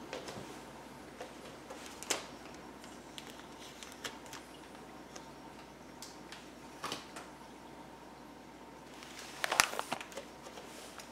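Cardboard packing crossbar and plastic wrap being handled on top of a boxed TV: scattered light rustles and taps, then a louder burst of scraping and crinkling near the end as the crossbar is lifted off.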